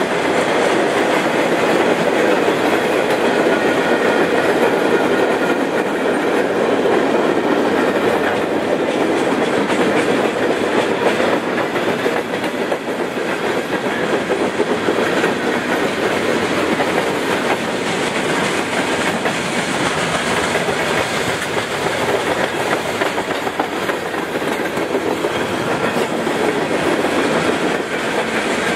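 Freight train cars rolling past: steel wheels running on the rails in a steady rumble, with rapid clicking over the rail joints.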